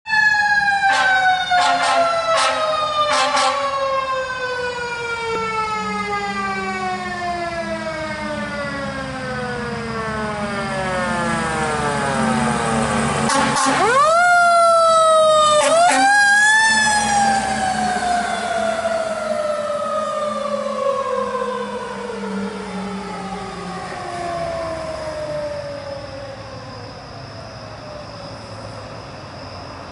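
A fire truck's mechanical siren winds slowly down in pitch, is spun back up twice in quick succession near the middle as the truck passes, then coasts down again and fades. Four short sharp blasts sound in the first few seconds, and the truck's diesel engine rumbles underneath, loudest as it goes by.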